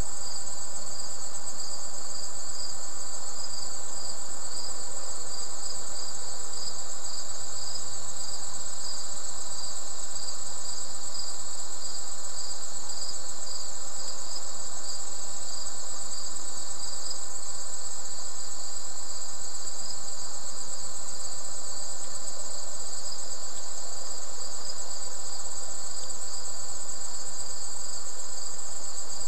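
Chorus of insects such as crickets, trilling without a break at two high pitches, the lower trill pulsing rapidly.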